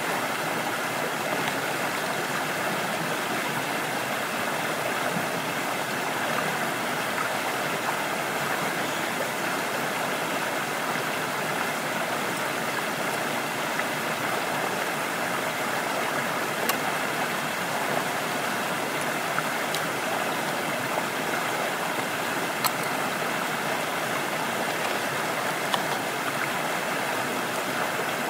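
Stream water running with a steady rush, and a few faint sharp clicks over it in the second half.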